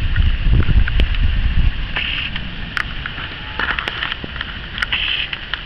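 Thunderstorm outdoors: a deep rumble that fades after about two seconds, with scattered crackles and clicks.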